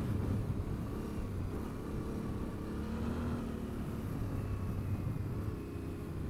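Yamaha Ténéré adventure motorcycle's engine running steadily under way on a dirt track, with a low rumble.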